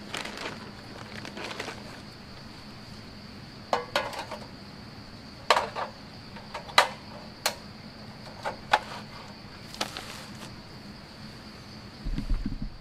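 A steady high-pitched insect buzz from the forest, with sharp clicks and clatter of camp cooking gear being handled at a portable gas stove, and a brief low rumble near the end.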